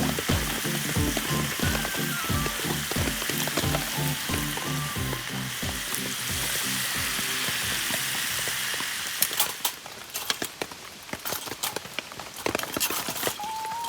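Pork belly sizzling on a grill, a steady hiss of frying fat, under background music with a steady beat. The music drops out about two-thirds of the way through, leaving sharp pops and crackles of spitting fat, and comes back near the end.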